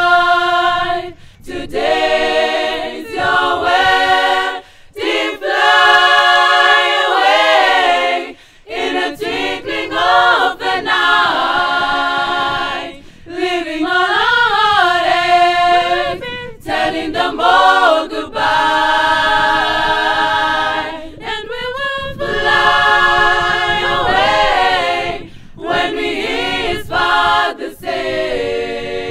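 A cappella girls' choir singing a religious song, in phrases of a few seconds broken by short breaths.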